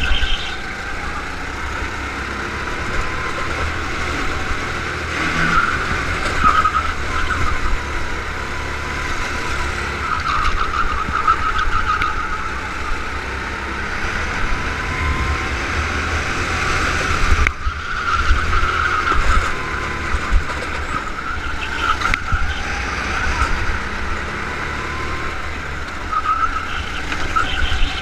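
Go-kart engine heard from onboard the kart at racing speed, its note rising and falling with the throttle through the corners, over a low rumble of wind on the microphone.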